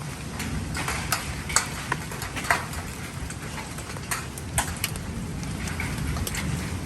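Heavy rain falling steadily, with individual drops striking hard close by as sharp, irregular ticks.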